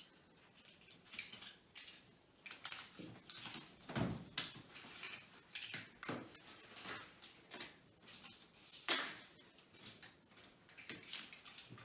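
Scattered soft knocks and clatter of eggs and plates being set down on a table, the loudest about four seconds in and again about nine seconds in.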